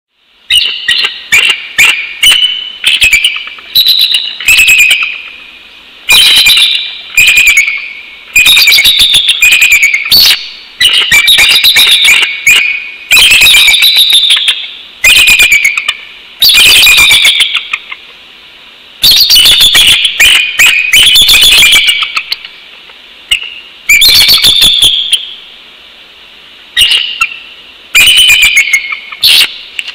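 Bald eagle calling: a loud series of high, chittering, piping calls in bursts of about half a second to two seconds, separated by short pauses.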